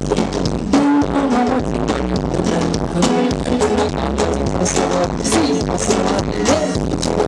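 Live band music: a woman singing into a microphone over electric bass, keyboards and a steady drum beat.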